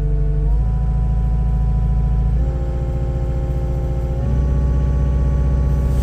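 Cat 262D skid steer's diesel engine running at idle and stepping up in engine speed several times as the throttle dial is turned toward high idle to warm it up in the cold.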